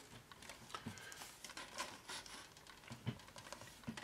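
Faint light clicks and rustling of a plastic model-kit sprue being handled and lifted off a cutting mat.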